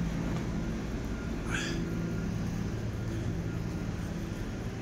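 A steady low mechanical hum, with faint voices and one brief high chirp about a second and a half in.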